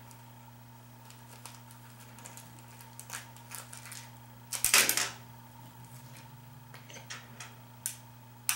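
Small metal hardware (screws, nuts and keepers) being handled during assembly: scattered light clicks and taps, with a louder clattering rattle about halfway through.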